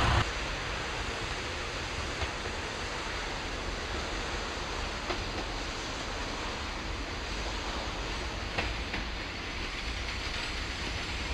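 KiHa 58 diesel railcar approaching along the line: a steady, low running and rail noise with a few light clicks.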